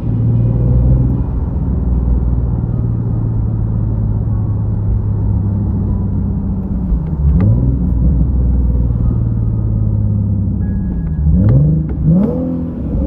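Nissan 370Z's 3.7-litre V6 running on test pipes, with a steady deep exhaust drone while driving. The engine pitch dips and climbs again twice, about halfway through and near the end.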